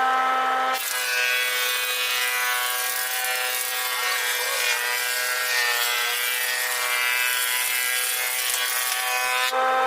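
Electric power tool running with a steady whine, then cutting into wood from about a second in until near the end, which adds a dense rasping noise over the motor.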